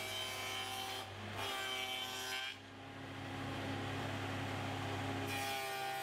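Table saw with a dado stack running and cutting a dado across a plywood panel: a steady motor hum with the wood being cut. The sound dips briefly about two and a half seconds in and shifts a few times.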